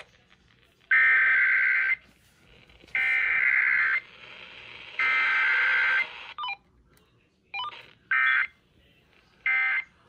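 EAS digital data header (SAME code) for a Required Weekly Test, heard through a Uniden BC370CRS scanner radio's speaker: three steady, warbling data bursts of about a second each, two seconds apart. About eight seconds in come shorter bursts of the same tones about a second and a half apart, the end-of-message code.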